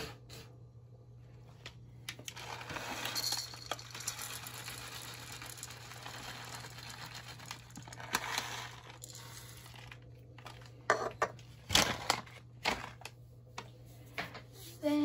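Crinkling plastic bag and a rattle of chopped pecans being poured into a plastic measuring cup. Then, near the end, a few sharp knocks as the cup is emptied into the metal bowl and set down.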